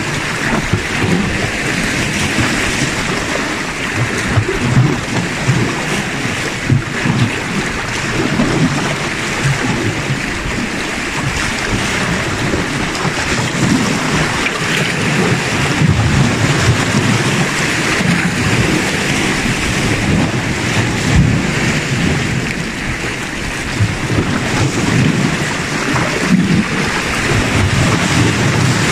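Sea waves washing and splashing against shoreline rocks, with wind buffeting the microphone in uneven gusts throughout.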